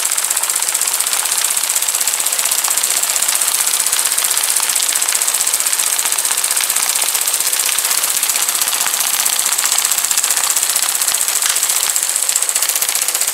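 Breaker/hammer attachment of a 1/16 scale RC excavator chattering steadily with very rapid strokes as its metal striker works into chunks of hard clay.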